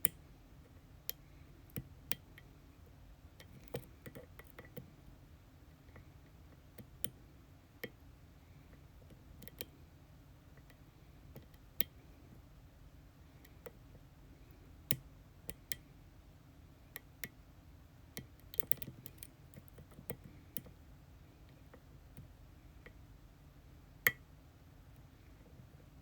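Lock pick working the pins of an ASSA Twin Exclusive lock cylinder: small, sharp metal clicks at an uneven pace, about one or two a second, with a quick cluster of them partway through and one louder click near the end.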